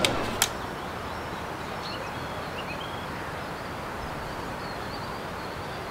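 Steady outdoor ambience, a soft wash of wind and surf noise with a few faint bird chirps; two sharp clicks in the first half second.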